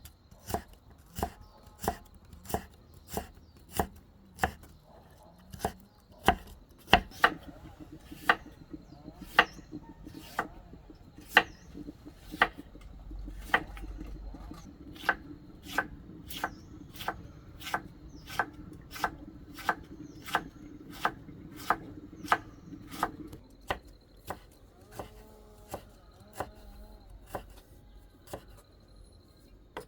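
Steady chopping on a cutting board: a blade strikes the board in sharp, even strokes, about one and a half a second.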